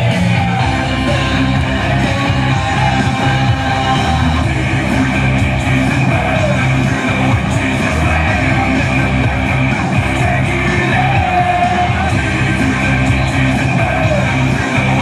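Rock music with guitars and a singing voice, at a steady loud level.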